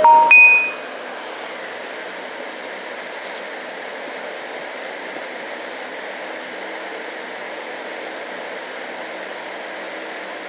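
Three short electronic beeps rising in pitch in quick succession, followed by a steady hiss of background noise.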